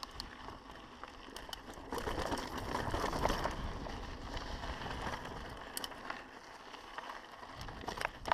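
Mountain bike riding down a dry dirt singletrack: tyres rolling over loose dirt and gravel, with the bike rattling and sharp clicks now and then. It gets louder about two seconds in and eases off before the end.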